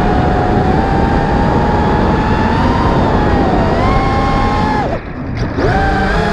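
A 5-inch FPV racing quadcopter's brushless motors (Lumenier Skitzo 2204 2500kv) and propellers whine through the onboard GoPro, with wind rush over it. The pitch wavers with throttle, falls sharply about five seconds in as the throttle is cut, then climbs again near the end.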